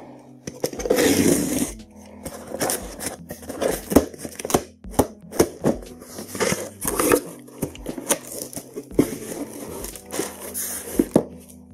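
Utility knife slitting packing tape on a cardboard box, with a long tearing rasp about a second in, then cardboard flaps being pulled open and handled with many short scrapes, knocks and crinkles.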